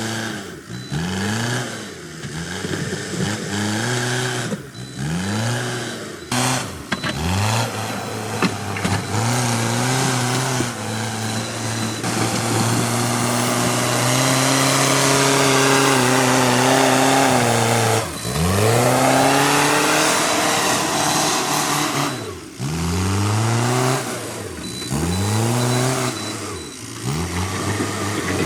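Backhoe loader's diesel engine revving up and down over and over as it works, held at high revs for several seconds in the middle, then dropping and climbing again.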